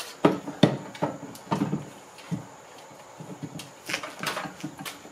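Irregular metal clanks and knocks as a small horizontal-shaft engine is handled and fitted onto its metal mounting plate, about a dozen sharp strikes with rustling handling noise between them.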